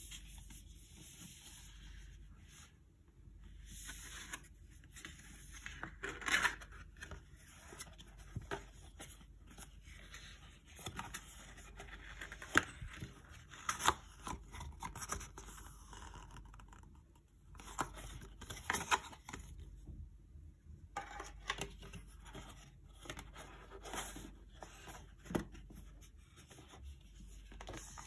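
Close-up handling of a cardboard watch box and a paper instruction leaflet: paper and card rustling, scraping and sliding against each other, with irregular sharp taps and clicks.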